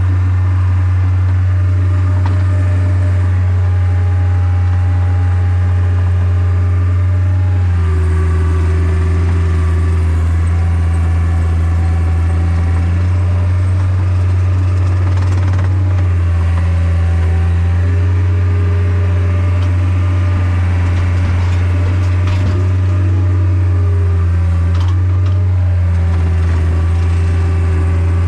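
An engine running steadily throughout, with a strong low hum and higher tones that shift in pitch every few seconds.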